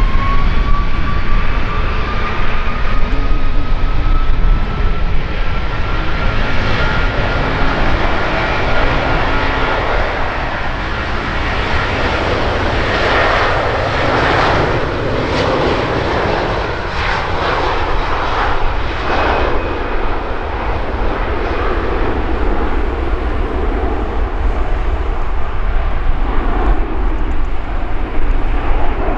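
Airbus A330-300's twin turbofan engines at take-off power, as the airliner makes its take-off roll and climbs away. A loud, steady jet roar runs throughout, with a thin whine that rises in pitch over the first ten seconds or so.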